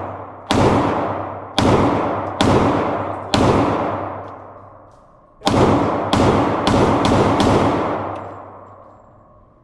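Gunshots echoing in an indoor shooting range, about nine in all. Four come roughly a second apart, then after a short pause a quicker string of five, each shot leaving a long reverberant tail.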